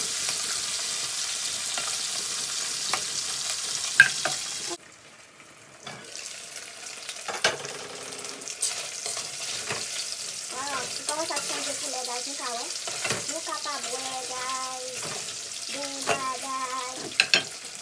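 Sliced hot dog sausages sizzling as they fry in oil in an aluminium pot, with a metal spoon clicking against the pot as they are stirred. The sizzle is loud at first, drops suddenly about five seconds in and carries on more quietly.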